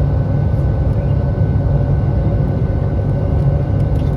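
Airliner cabin noise: a loud, steady drone of the jet engines and rushing air heard from inside the plane, with a faint steady whine and a few light clicks near the end.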